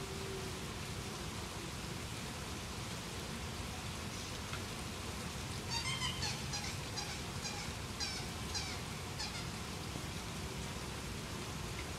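Steady rain falling, with a run of about eight short, high chirps from a bird midway through.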